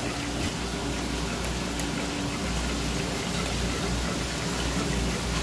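Steady patter and hiss of running seawater from the hoses and live tanks of a seafood stall.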